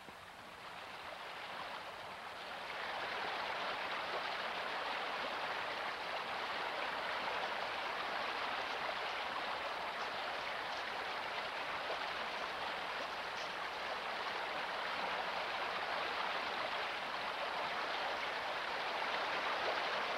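Steady rushing water, swelling over the first couple of seconds and then holding at an even level.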